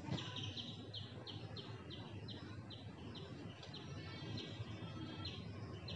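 A bird calling faintly: a run of about ten short, high chirps, roughly three a second, then a softer trill.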